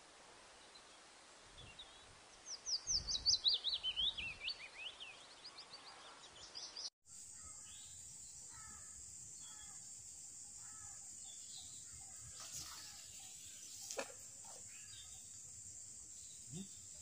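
A bird calls in a quick run of high notes that slide downward in pitch, about three to five seconds in. After a sudden break about seven seconds in, a steady high insect drone carries on, with faint repeated bird chirps and a single click near the fourteenth second.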